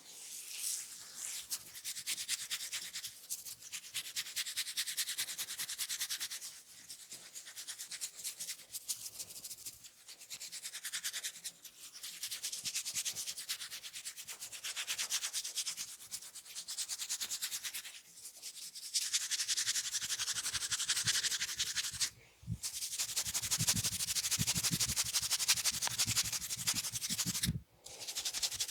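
Fingers scratching and rubbing through hair and scalp in a head massage: a dense, hissy scratching that swells and eases every few seconds, with two brief breaks near the end.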